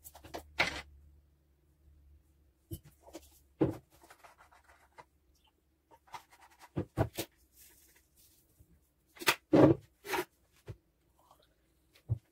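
Jars, a bottle and a plastic electric kettle handled on a kitchen counter: scattered clicks, taps and knocks as lids are opened and things are picked up and set down, over a faint steady hum.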